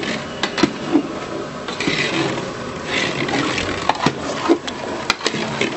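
Long-handled metal ladle stirring and scraping thick rava kesari in a large aluminium pot, with scattered sharp knocks of the ladle against the pot.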